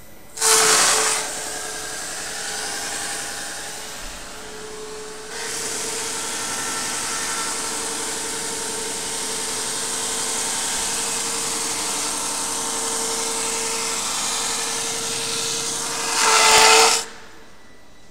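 Ascot S300 Profil brushing machine's cup brushes scouring a rough wooden board as it feeds through: a steady, loud grinding run over a constant hum. It surges loudest briefly just after the start and again near the end, then drops away.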